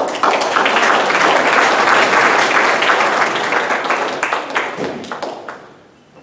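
Audience applauding, many hands clapping together; the clapping holds steady for about five seconds, then dies away.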